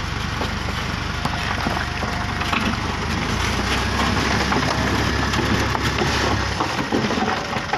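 Dump truck engine running under load as the hydraulic hoist raises the bed, with the sand-and-gravel load scraping and rattling out of the tipped body. The low engine drone drops away about six and a half seconds in.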